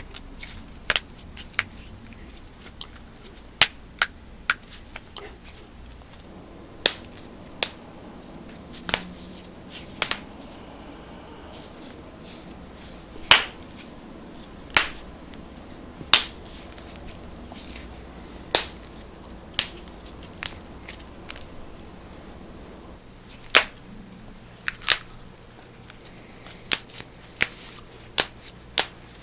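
Knuckles cracking: sharp single pops, one every second or so at irregular intervals, coming closer together near the end.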